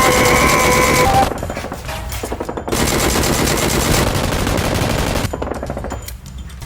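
Rapid automatic gunfire in two long bursts, the first in the opening second and the second from about three to five seconds in.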